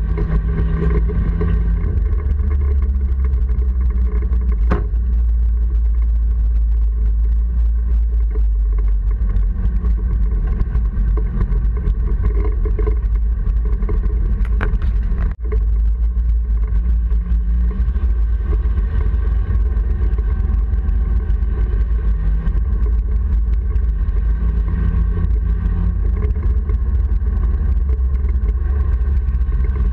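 Honda Civic race car's four-cylinder engine running hard, heard from inside the cabin over a heavy low rumble. Two sharp clicks come about five and fifteen seconds in, and the sound briefly drops out just after the second.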